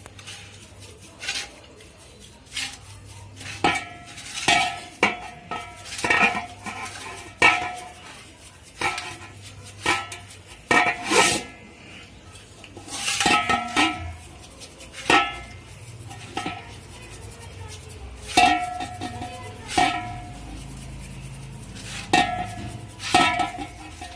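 Metal tools and compressor parts clinking together, about a dozen irregular sharp strikes, each with a short metallic ring.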